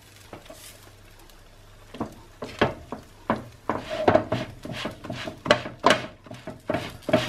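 Quiet at first, then from about two seconds in a run of irregular clicks, knocks and rustles: a frying pan and tortillas being handled on a gas hob as a top tortilla is laid on and pressed down by hand.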